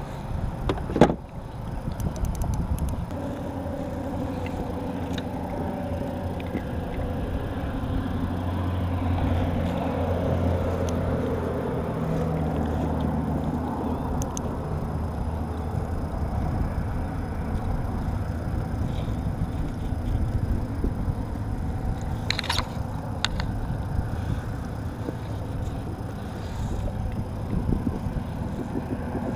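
Steady rumble of road traffic on the causeway bridge, swelling for a few seconds about a third of the way in as a vehicle passes. A few sharp clicks of fishing tackle being handled come through it, one about a second in and another past two-thirds through.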